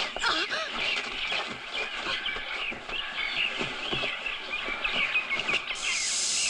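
Dense jungle birdsong, many birds chirping and warbling at once, with scattered thumps and scuffles from a man wrestling a snake. Nearly six seconds in, a steady hiss starts, the snake hissing as it is held up by the neck.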